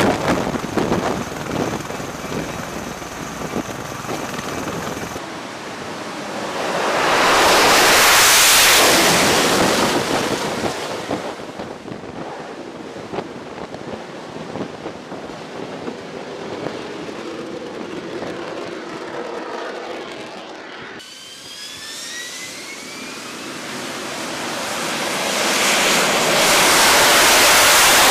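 Military aircraft operating on a ship's flight deck: MV-22 Osprey tiltrotor noise over the first few seconds, then the jet engine of an AV-8B Harrier swelling to a loud roar and fading about eight seconds in. Near the end, a rising engine whine builds into a second loud roar.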